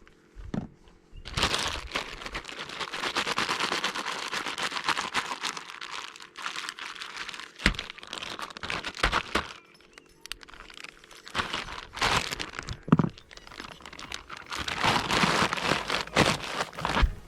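Packaging crinkling and rustling as it is handled, in two long stretches with a couple of sharp knocks between them.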